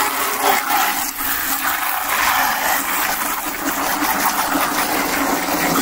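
A jet of water from a hose spray gun splashing steadily into a plastic bucket of liquid detergent, churning it into foam.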